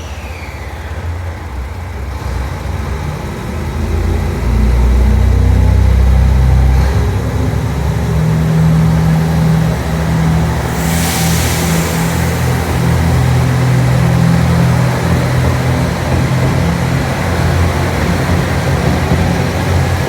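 Diesel engines of a JR Shikoku 2700 series diesel multiple unit throttling up as the train pulls away from the platform. The rumble builds over the first few seconds and then settles into a steady low drone, with a short hiss of air about eleven seconds in.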